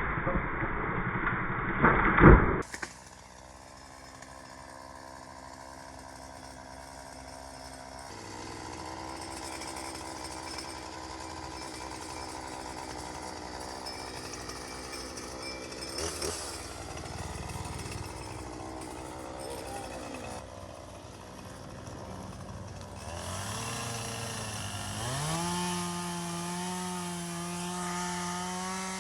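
Petrol chainsaw running, first at a steady idle, then revved up to high, steady revs about 25 seconds in. A few loud knocks sound in the first couple of seconds.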